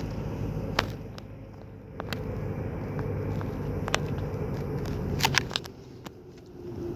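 Low outdoor rumble, with scattered light clicks and taps. It drops quieter twice for about a second, once about a second in and again near the end.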